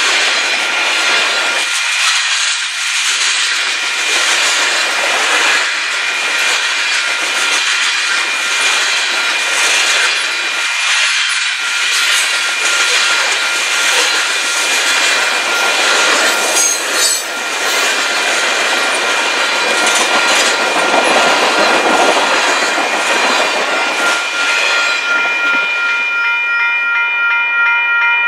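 Freight cars of a mixed freight train rolling past close by, wheels rumbling and clattering on the rails, with scattered clicks and squeals. The rolling noise thins near the end as the last car goes by, leaving a steady high ringing tone that runs underneath throughout.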